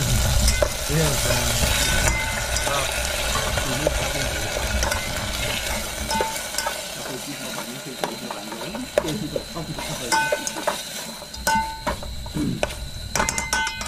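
Food sizzling in a metal pot while a spoon stirs it. In the second half there are sharp metallic clinks of the spoon against the pot, some ringing briefly.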